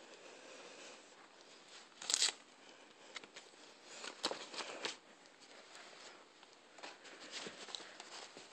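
Close handling noise: fabric rustling and scraping, with a few sharp clicks and scuffs as a banana is pushed into a fabric Christmas stocking. The loudest is a short scrape about two seconds in, with more between four and five seconds.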